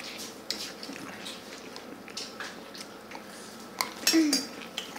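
Scattered light clinks and taps of spoons and dishes at a meal, with a brief voice sound about four seconds in.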